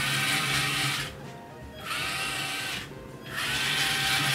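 The small DC gearmotors of a two-wheeled robot rover whirring in three short bursts as it is driven, each burst starting with a brief rising whine.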